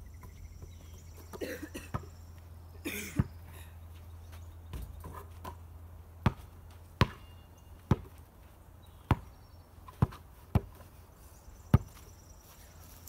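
Basketball bouncing on a dirt yard: about seven sharp single thuds, roughly one a second, through the second half, after a few scuffling knocks in the first three seconds.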